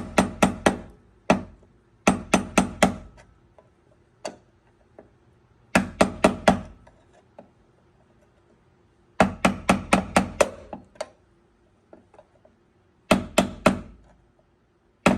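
Hammer driving a punch to knock old bushings out of a 1987 Monte Carlo SS door hinge: quick runs of ringing metal-on-metal strikes, about five a second, repeated every few seconds.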